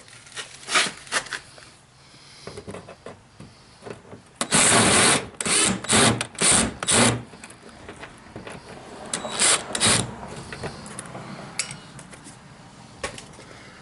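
Hand-tool work on the plastic bumper-cover fasteners: a run of loud rasping strokes about twice a second, starting about four and a half seconds in, then two more strokes near the ten-second mark, with light clicks and knocks in between.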